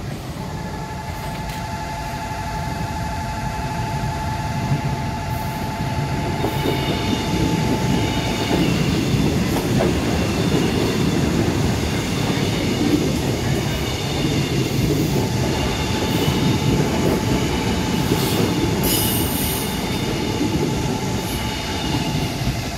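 Korail stainless-steel commuter electric train passing close by, its wheels rumbling continuously over the rails. High wheel squeal sets in after about six seconds and runs on over the rumble. Steady mid-pitched tones sound over the first several seconds and again near the end.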